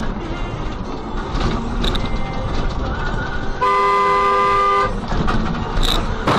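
A car horn sounds once, held steadily for about a second, over continuous traffic and road noise.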